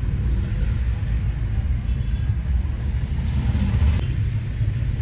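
Low, steady engine and road rumble of a car driving along a wet, flooded street, heard from inside the cabin. A hissing swell rises about three and a half seconds in.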